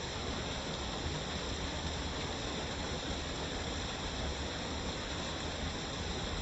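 Waterfall, water crashing steadily, as a continuous rushing noise with a deep rumble underneath.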